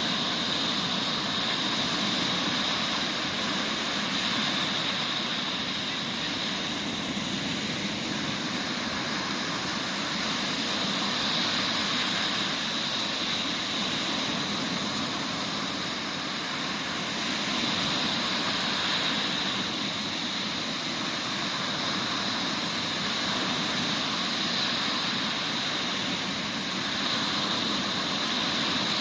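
Mediterranean sea waves breaking on a sandy beach after a summer storm: a continuous wash of surf that swells and eases every several seconds.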